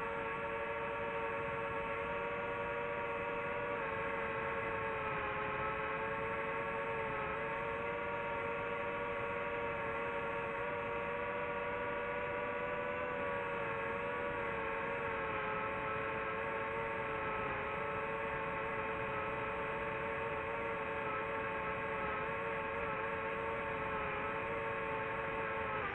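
DJI FPV drone's motors and propellers whining steadily in forward flight, the pitch sagging and recovering slightly a few times.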